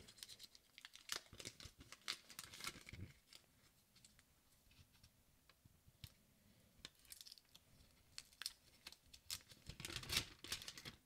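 Faint crinkling and tearing of the protective wrap as it is peeled off an Apple 140-watt USB-C power adapter, with small handling clicks. It comes in two spells with a quiet lull in the middle.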